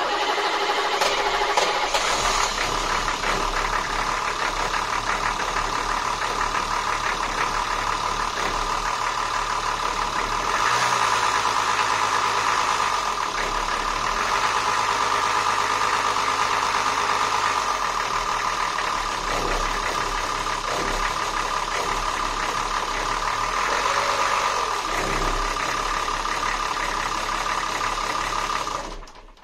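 Babilja 1000AK motor boat's inboard engine running steadily in its open engine bay, a little louder for a couple of seconds about ten seconds in.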